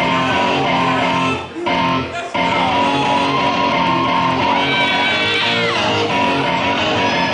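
Dance music playing from a song mix, with two brief dips in the sound around a second and a half and two seconds in.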